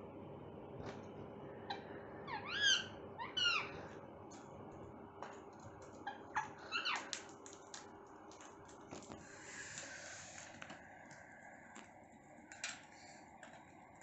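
Rose-ringed parakeets calling and pecking: two loud squawks that rise and fall in pitch come close together a few seconds in, with a shorter call a few seconds later, amid scattered sharp taps of beaks on the plastic seed tray and tiled floor.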